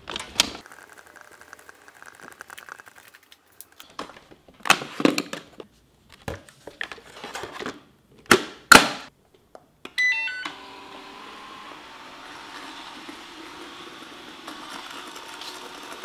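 DeenKee D40 robot vacuum-mop being handled and set down on a tile floor, with several sharp plastic knocks, the loudest about nine seconds in. About ten seconds in it gives a quick series of short electronic start-up beeps, then its motors run with a steady hum.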